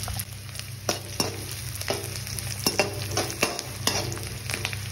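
Sliced onions sizzling in mustard oil in a kadai while a spatula stirs them, scraping and knocking against the pan at irregular moments; the onions are being fried until lightly browned. A steady low hum runs underneath.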